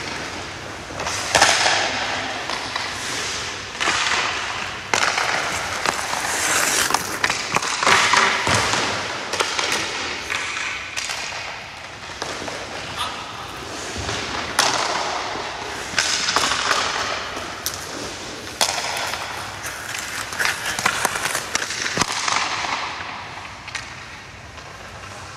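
Hockey skate blades scraping and carving across rink ice in repeated swishes a second or two long, from a goaltender's crease movements and a skater's strides. Several sharp cracks of puck and sticks on pads and ice are heard among them.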